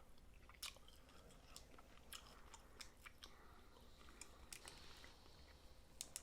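Faint chewing and crunching of snow crab, with scattered small clicks and crunches.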